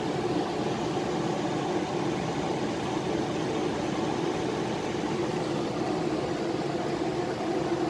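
Palomar Icon laser console running idle: a steady machine hum with several low tones mixed into a fan-like whir.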